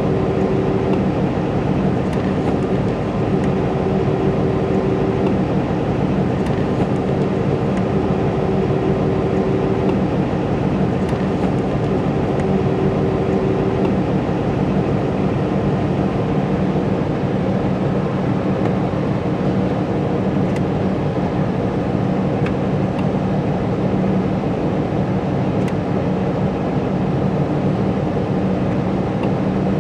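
2016 Ram ProMaster van's V6 engine idling steadily. In the first half, an extra steady tone cuts in and out about four times as the LED headlight conversion is switched on and off. The owner cannot explain this noise and does not hear it with the halogen bulbs.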